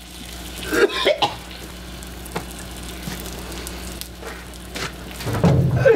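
Food sizzling on a hot space heater, a steady hiss. Short voice sounds break in about a second in and near the end.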